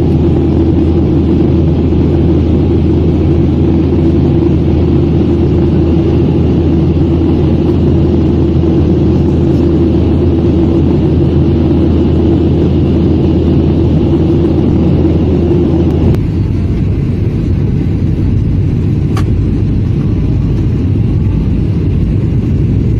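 Jet airliner cabin noise from a window seat: a loud, steady rumble of engines and rushing air with a steady hum and a faint high whine. About two-thirds of the way through it changes abruptly to a deeper, duller rumble, with a single click a few seconds later.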